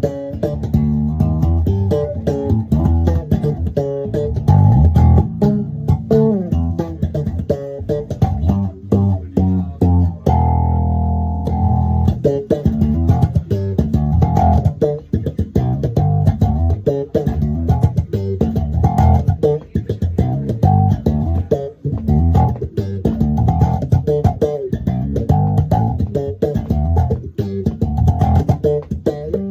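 Slap bass on a Fender Jazz Bass played through an Electro-Harmonix Nano Q-Tron envelope filter pedal: a fast run of short, sharply struck notes, with one longer held note about ten seconds in.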